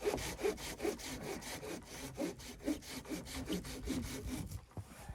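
A hand saw cutting wood in quick, even back-and-forth strokes, stopping about four and a half seconds in.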